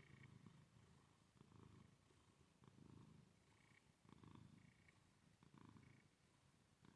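Domestic cat purring faintly, the low rumble swelling and easing with each breath, about once every second and a half.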